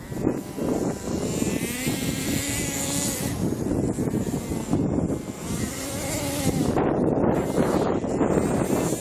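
Radio-controlled monster truck's motor revving up and down in bursts as the truck drives across loose sand and up a sand pile, with wind rumbling on the microphone.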